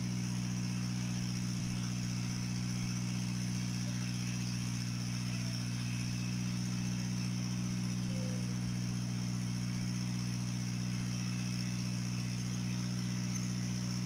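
A motor running steadily at constant speed, giving an unchanging low hum.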